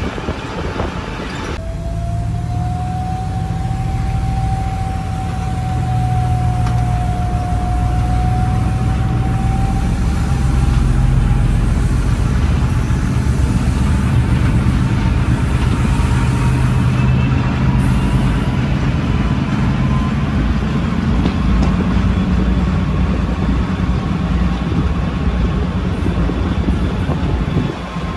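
Diesel train running with a deep, steady engine hum and a whine that rises slowly in pitch.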